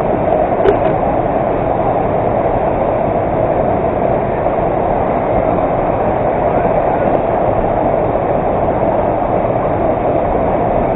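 Waterfall: a loud, steady rush of falling water, with one brief click under a second in.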